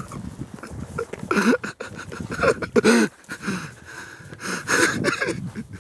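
Excited wordless yells and breathless, gasping laughter from people chasing an animal on foot. Scattered knocks and rustles run underneath.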